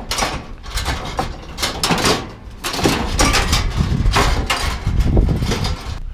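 Scrap metal being pulled apart and handled: a rapid run of scrapes, knocks and rattles of metal parts.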